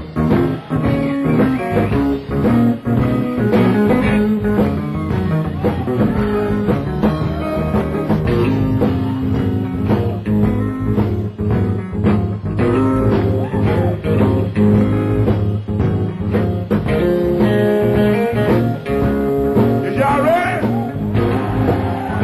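Electric blues band playing live, with electric guitar to the fore.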